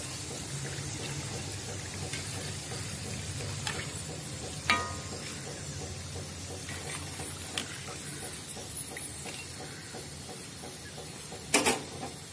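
Hot oil sizzling softly in a wok as a few banana chunks finish frying, with a short ringing metal clink of a spoon against the wire spider strainer a few seconds in and a louder sharp knock near the end.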